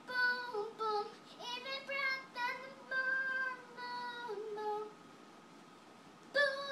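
A young girl singing solo in a high voice, several short sung phrases that stop about five seconds in and start again just before the end. A faint steady high whine sits under it throughout.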